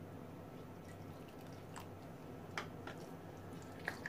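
Wet squishing of thick semolina-and-gram-flour batter being mixed by hand in a glass bowl, with a few light, sharp clicks.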